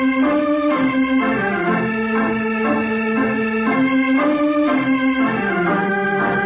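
Organ playing the program's opening theme: a slow melody of held notes stepping up and down over sustained chords, dropping lower about five seconds in.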